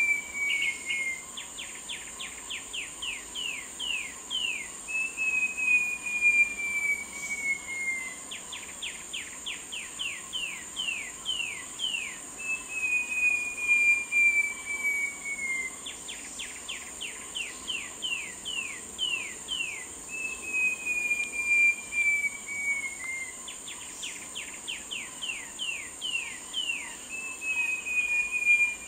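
Short-tailed babbler singing: a long, slowly falling whistle followed by a run of about ten quick down-slurred notes, the phrase repeated about four times. A steady high insect drone runs underneath.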